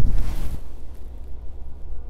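Wind buffeting the microphone: a steady low rumble, with a louder rush of noise in the first half second that then dies down.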